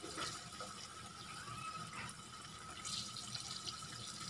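Egg tofu slices shallow-frying in hot oil in a pan: a steady sizzle, with a couple of light taps of utensils.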